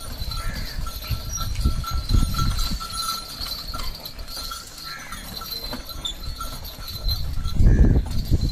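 A pair of bullocks pulling a loaded wooden cart on a dirt lane: hooves plodding and the cart rumbling, loudest near the end as it draws close.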